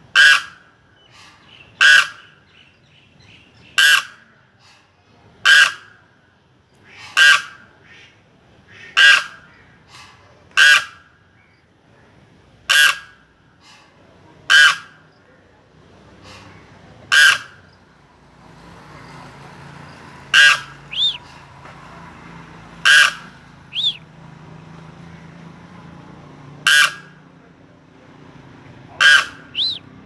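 Crane giving short, loud calls, repeated about every two seconds at first and more widely spaced later, sometimes in quick pairs. Past the middle a low steady hum and a few faint high whistles sit underneath.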